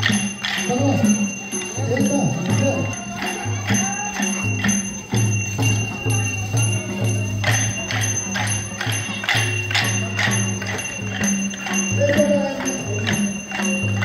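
Many pairs of short wooden sticks clacked together in an even beat, about three clacks a second, over the steady pulse of a two-headed barrel drum. Voices call out in the first few seconds and again near the end.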